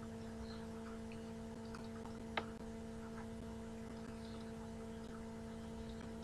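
Steady low electrical hum with faint scattered ticks of a stylus writing on a tablet, and one sharper click about two and a half seconds in.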